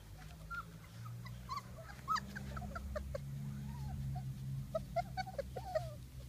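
Three-week-old Irish Setter puppies whimpering and squeaking: many short, high squeaks, some bending up or down in pitch, coming in clusters over a low steady rumble.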